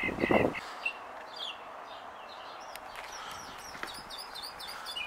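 Small birds chirping: a quick run of repeated high notes in the first second, then many short, high chirps several times a second. A brief low noise sounds right at the start.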